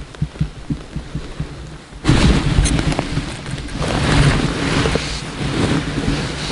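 Soft regular low thumps, about four a second, then from about two seconds in a loud rough rustling and rumbling as a jacket sleeve rubs and presses against the body-worn camera's microphone.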